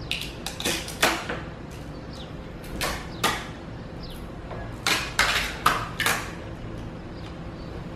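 Protective plastic film crackling as it is peeled off a replacement laptop battery, with scattered sharp clicks and taps of the battery pack being handled, in short clusters.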